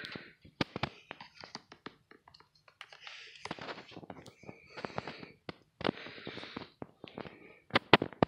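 Handling noise from a handheld phone being moved about: scattered sharp clicks and taps, a few louder ones near the end, with short stretches of rustling in between.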